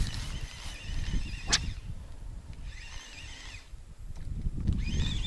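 Wind rumbling on the microphone, with an animal call repeated three times, each a wavering, rising-and-falling cry about a second long, and one sharp click about a second and a half in.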